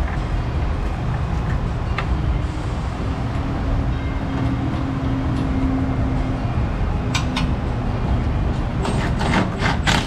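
Steady loud workshop background noise with a low rumble, and a couple of light clicks about seven seconds in. Near the end a cordless power tool runs in quick short pulses, starting a bolt into the truck's underbody shield.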